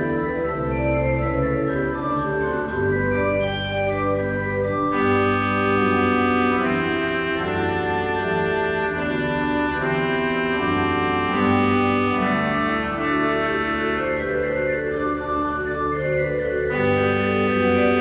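Background music of slow, sustained organ chords that change every second or two, growing fuller about five seconds in and thinning again near the end.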